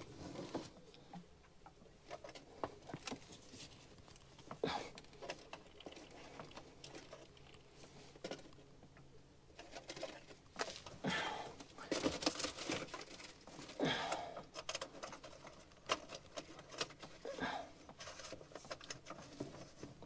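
Light clicks, rubbing and rustles of a green-and-yellow earth cable being fed by hand through the cable entry of a plastic enclosure, in scattered short bursts that are busiest around the middle.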